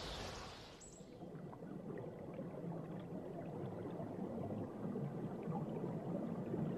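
Stream water flowing over rocks, a low, even rushing. Background music fades out about a second in.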